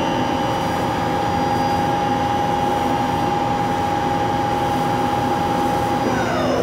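Mori Seiki SL-75A CNC lathe's spindle and three-speed gearbox running steadily at 750 RPM in high range, a steady mechanical whine. About six seconds in, the whine starts falling in pitch as the spindle winds down.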